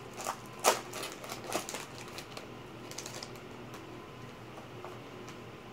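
Trading cards being handled and flipped through: a run of light clicks and taps, the sharpest about two-thirds of a second in, thinning out to soft handling after about three seconds.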